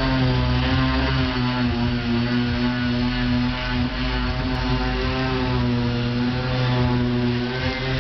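Handheld electric power tool running steadily on a wooden boat hull: a constant motor drone whose pitch wavers slightly as the load changes.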